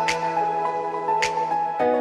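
Background music: soft, sustained chords with a light, sharp percussive hit about once a second.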